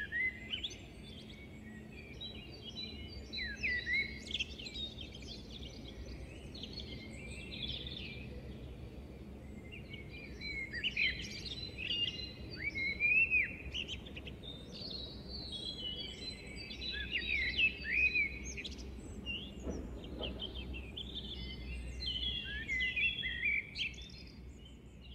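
Many short high-pitched chirps and squeaks, overlapping and gliding up and down in pitch, over a faint low hum.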